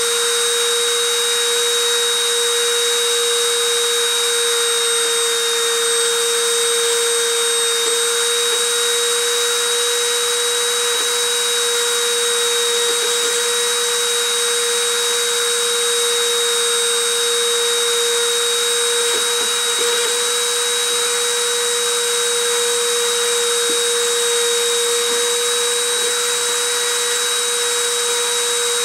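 Dremel rotary tool spinning at 30,000 RPM as a mini-mill spindle, running with a steady whine while the 0.6 mm silver wire in its collet is friction-surfaced onto an aluminium oxide ceramic substrate.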